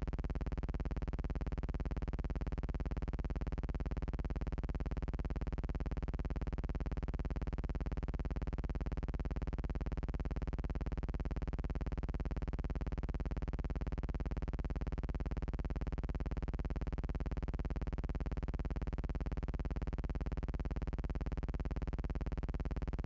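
A steady, unchanging electrical buzz, with no other sound over it.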